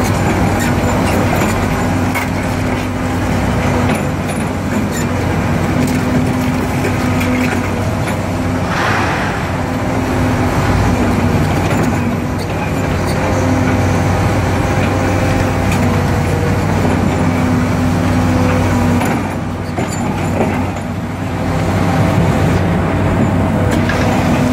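Excavator diesel engine and hydraulics running steadily with a constant hum and whine, under crackling and crunching as a hydraulic pulverizer's jaws crush concrete. A brief louder rush comes about nine seconds in.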